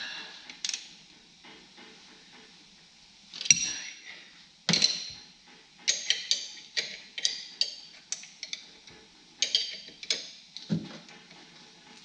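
Hand socket ratchet clicking as it is worked back and forth on the differential bushing bolts under the car. The sharp clicks come in a run of about two a second in the middle, with a few louder knocks before and after.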